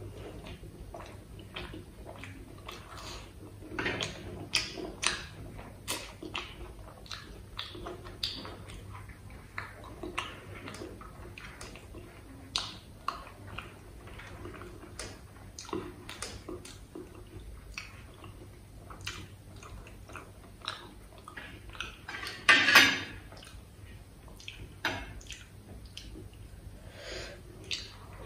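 Close-miked eating: chewing and wet mouth sounds with many small, crisp clicks and crackles as fried puri and aloo kachori are torn by hand and bitten. One much louder, noisy burst comes about four-fifths of the way through.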